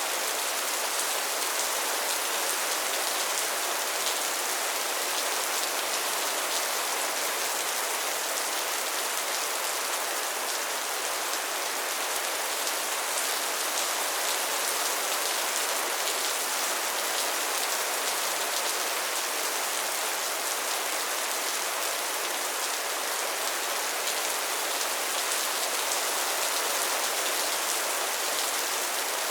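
Steady rain falling, an even hiss with the patter of drops hitting a surface and no thunder.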